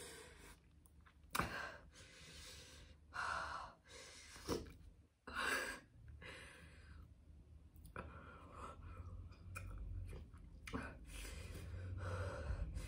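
A woman breathing hard against the burn of a super-hot chili chip: short sharp breaths, sighs and sniffs every second or two, fainter in the second half.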